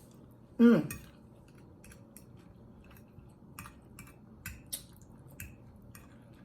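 Eating at a plate: a short hum falling in pitch about half a second in, the loudest thing here, then scattered small clicks and clinks of utensils and food against the dish, with chewing.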